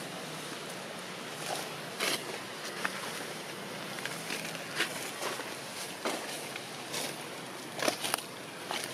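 Steady outdoor background noise with a handful of short, sharp clicks and rustles scattered through it, the loudest two close together near the end.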